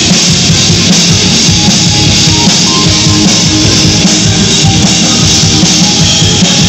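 Live rock band playing: electric guitars and a drum kit together in a dense, steady wall of sound.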